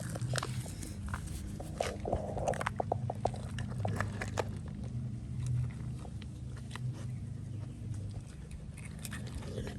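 A dog working a plastic brick puzzle toy, with scattered clicks and knocks as it moves the pieces, and biting and chewing as it gets at the treats.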